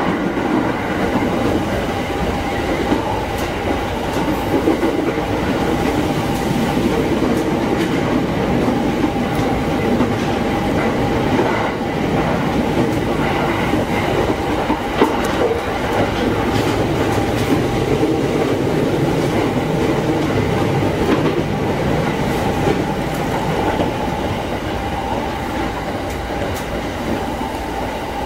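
JR East E231-0 series commuter electric train running at steady speed, heard from inside its front car: continuous wheel-and-rail running noise with wheels clacking over rail joints and a steady whine beneath.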